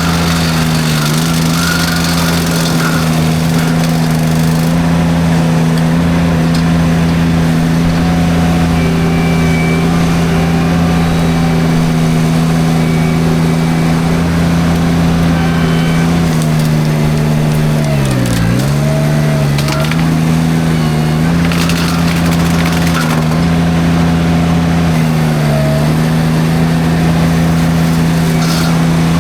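Derette V1000 mini skid steer running at high engine speed with its forestry drum mulcher chewing through brush. The engine pitch sags sharply and recovers about two-thirds of the way through, with a few smaller dips, as the drum takes on load, and there are occasional cracks of snapping brush.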